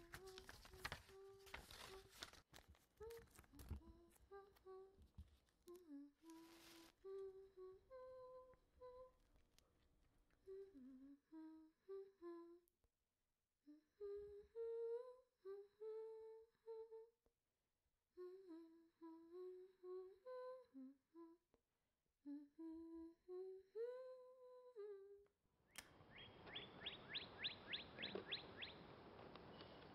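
A person humming a slow, wandering tune in short phrases, with paper rustling under it in the first few seconds. About 26 s in the humming stops at a cut to a steady hiss, with a quick run of high ticks.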